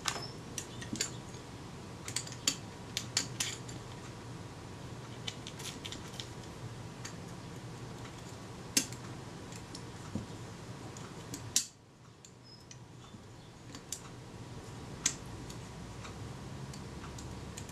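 Irregular small metallic clicks and taps of steel tweezers against the Kodak Retina IIIc's film advance shaft parts as the spring on the advance shaft is worked into its slot, with one sharper click about two-thirds of the way through.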